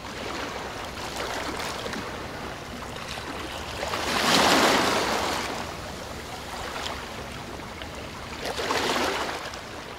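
Ocean waves washing: a steady rush of water that swells loudest about four seconds in and again near the end.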